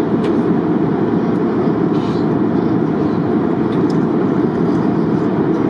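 Steady airliner cabin noise: a loud, even rumble with a few faint clicks over it.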